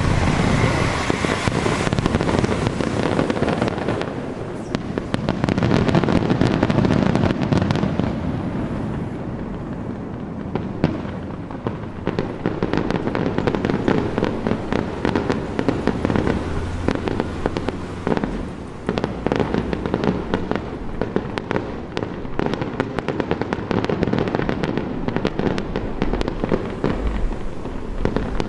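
Aerial fireworks shells bursting in a continuous barrage, deep booms mixed with sharp reports. About ten seconds in it turns to dense crackling.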